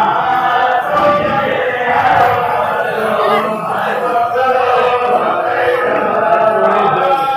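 A group of voices chanting together in a steady devotional chant.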